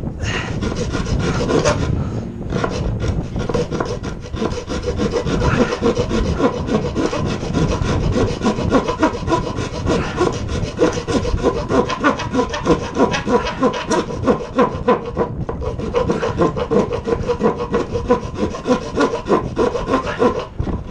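Handsaw cutting across a softwood board: steady, rhythmic back-and-forth strokes rasping through the wood.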